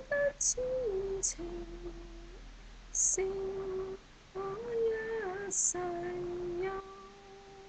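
A woman singing a Cantonese song solo and unaccompanied, in long held notes. Short pauses for breath fall between phrases, and hissing 's' sounds are sung clearly.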